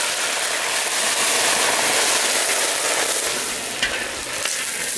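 Cut eggplant pieces frying in hot oil in a large iron karahi: a loud, steady sizzling hiss, just after the wet pieces have gone into the oil.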